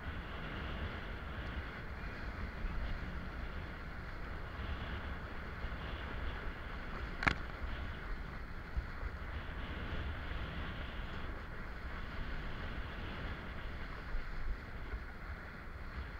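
Wind buffeting the action camera's microphone with the rush of water under a kiteboard riding through light chop, a steady noise with a deep rumble. A single sharp click about seven seconds in.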